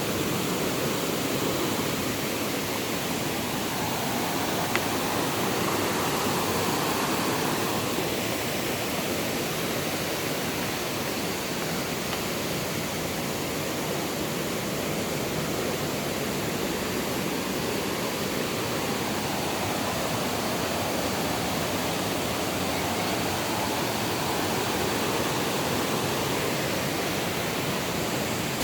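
Düden Waterfall's falling water, a steady, unbroken rushing noise.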